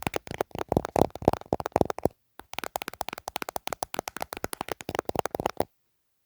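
Rapid ASMR tapping with the fingers on a handheld device such as a camera or phone case, roughly ten taps a second. It pauses briefly about two seconds in and stops abruptly near the end.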